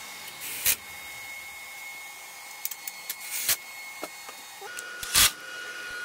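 Workshop assembly on a steel-tube frame: three loud sharp knocks and several lighter ticks as parts and bolts are handled, over a faint steady high whine.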